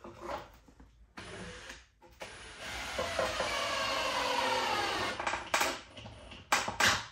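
Cordless drill fitted with a socket bit, driving a screw into a wooden board for about three seconds, its pitch rising slowly. Three sharp knocks follow near the end.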